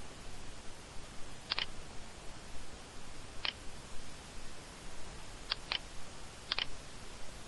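Computer mouse clicking over a steady hiss: a quick double click about a second and a half in, a single click midway, then two clicks and another quick double click near the end.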